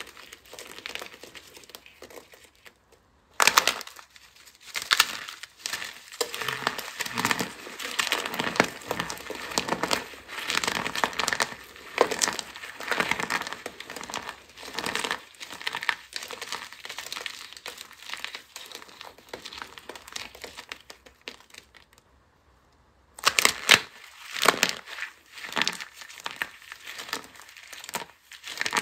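Hands squeezing and crushing dry soap pieces packed with starch: dense crunchy crackling and crumbling that swells and eases with each squeeze. It stops briefly about three seconds in and again around twenty-one seconds in, then starts again loudly.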